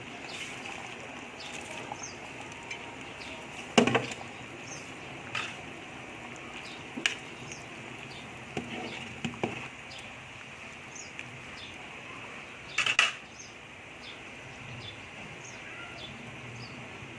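A metal cooking utensil clinking and knocking against a cooking pot now and then, over a steady faint hiss. The two loudest knocks come about 4 seconds in and about 13 seconds in.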